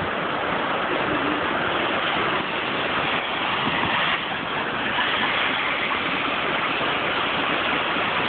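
Floodwater rushing in a steady, unbroken stream.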